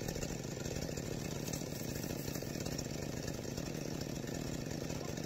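Stihl 026 two-stroke chainsaw idling steadily, left running to warm up.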